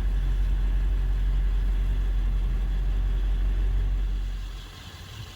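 A vehicle engine idling with a low, steady rumble that fades away near the end.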